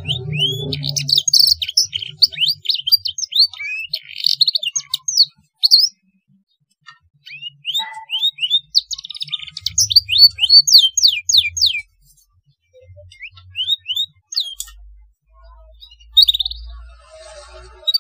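Domestic canary singing a song filled with blackthroat phrases: runs of quick sweeping whistled notes and trills, broken by short pauses.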